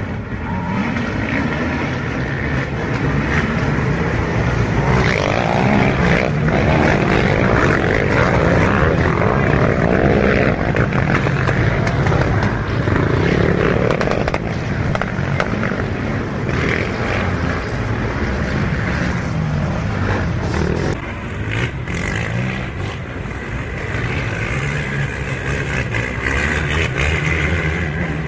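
Engines of racing quad bikes revving hard as a pack passes close by, the revs rising and falling over and over. About two-thirds of the way in, the sound drops a little and goes on as quads running farther off.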